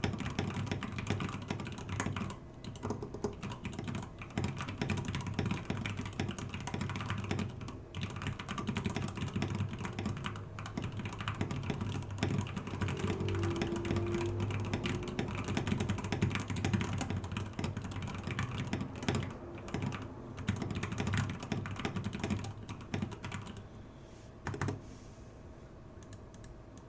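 Fast, continuous typing on a custom mechanical keyboard with Gateron Yellow linear switches, thick PBT OEM-profile keycaps and a wooden case. The key strokes run densely, then stop near the end after one last single stroke.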